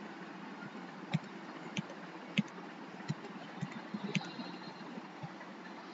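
About seven light, separate clicks at irregular intervals, typical of a computer mouse being clicked, over a steady faint hiss and hum.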